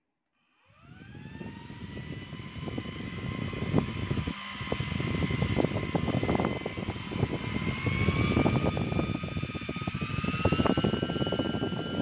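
A small PC CPU cooling fan switched on and spinning up, its whine rising over about a second and then stepping higher twice as its speed control is turned up. Rushing air and paper strips fluttering in the blast make a dense crackle under the whine.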